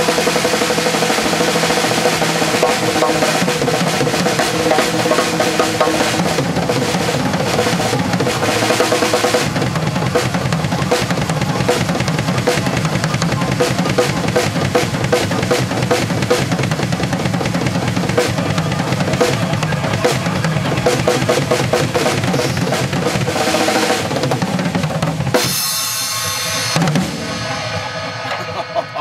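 Acoustic drum kit played hard, with bass drum, snare and cymbals, along to a recorded rock song whose main rhythm is in 7/8 and 4/4. Near the end the playing stops, a last crash rings out and fades, and the level drops.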